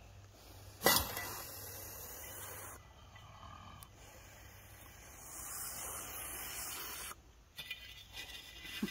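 Shovel prodding at a trapped badger in the dirt of its burrow: a sharp knock about a second in, then scraping and rustling noise, with a few small clicks near the end.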